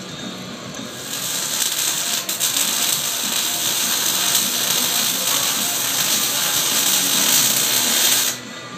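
Loud steady hiss that starts suddenly about a second in and cuts off suddenly near the end, over background music.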